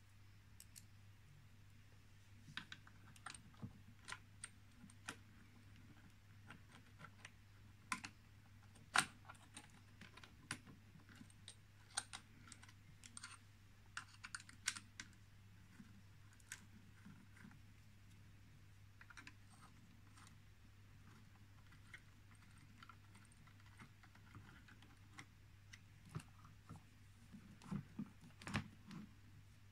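Irregular small clicks and taps of metal parts and an Allen key being handled on a Sherline lathe's headstock and motor mount, with a cluster of taps near the end. A low steady hum runs underneath.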